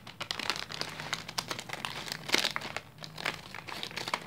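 Scissors cutting open a plastic snack packet, the film crinkling and crackling in irregular bursts as it is cut and handled. It is loudest a little past halfway.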